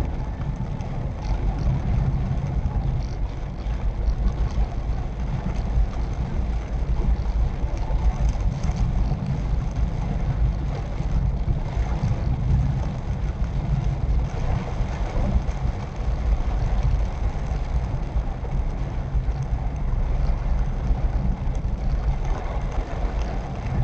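Swift Dzire driving on a rain-soaked road, heard from inside the cabin: a steady low rumble of engine and tyres, with a fainter hiss of rain and road spray over it.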